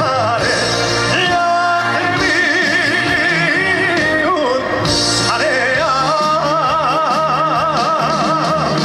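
Live trot song: a male voice holds long notes with wide vibrato over a band backing with a steady beat.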